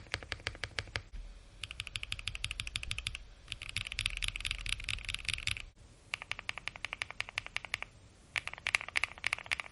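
Custom mechanical keyboard with lubed KTT Mint linear switches and PBT keycaps, its G, H and J keys struck in fast repeated bursts of about ten keystrokes a second. The bursts start and stop abruptly, with short pauses between them.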